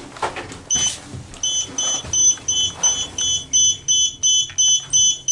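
Lift's electronic beeper sounding a rapid, even run of short high beeps, about four a second, starting just under a second in, over a faint low hum.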